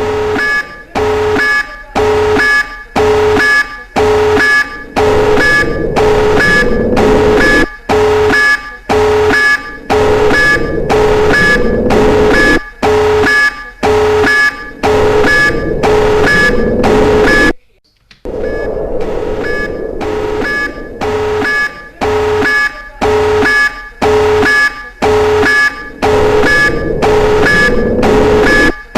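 Nuclear alert alarm: a loud electronic alarm pulsing in a steady rhythm of about one and a half blasts a second. It cuts out for about half a second about two-thirds through, then resumes.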